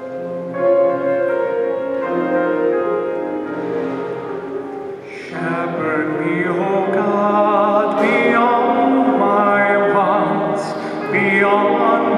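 Church music for the responsorial psalm after the first reading. A keyboard plays an introduction of held chords. About five seconds in, a solo singer enters with vibrato over the accompaniment.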